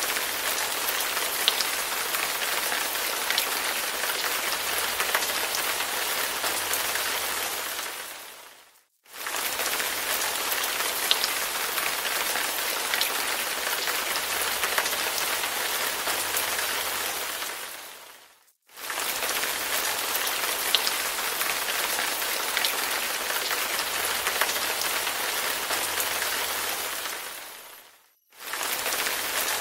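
Rain recording: a steady hiss with scattered drop ticks, looped in stretches of about nine seconds that fade out to brief silence and come back in, three times.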